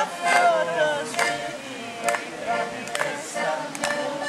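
Live accordion folk dance music with voices singing along, and a few sharp clicks over the music.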